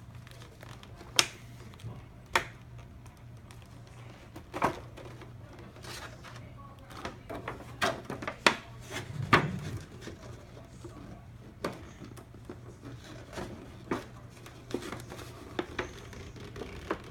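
Trading-card box packaging being handled: scattered clicks, taps and short crinkles of plastic and cardboard, over a faint low hum.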